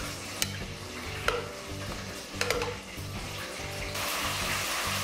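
Metal tongs click about three times as sausages are set down, then from about four seconds in a steady hiss as Cajun garlic-butter sauce is poured from a pan over the food. Background music with a steady beat plays throughout.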